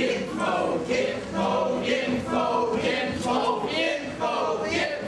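A group of men singing together into stage microphones, several voices at once with little or no instrument heard.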